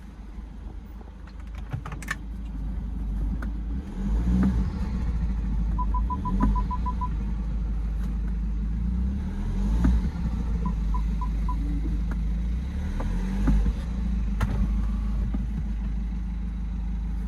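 BMW E92 320d's N47 four-cylinder diesel engine, fitted with an open air intake, accelerating and easing off several times, with turbo flutter as it lifts off.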